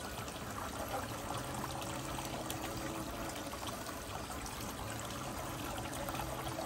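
Water running and trickling steadily over a Desert Fox spiral gold wheel as it turns, spraying from the feed tube and spilling off the wheel's edge into the tailings tray, with a faint low hum underneath.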